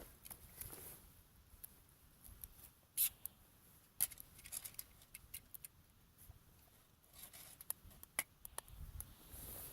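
Small stick fire in a can stove crackling: irregular sharp pops and snaps, two louder cracks about three and four seconds in.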